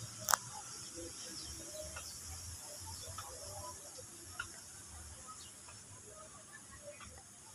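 Faint outdoor garden ambience: a steady high-pitched hiss with scattered faint short chirps and distant sounds, and one sharp click about a third of a second in.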